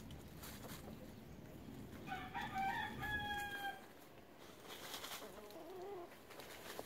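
Rooster crowing once, about two seconds in: a call of nearly two seconds that ends on a held note. A softer, wavering call follows near the end.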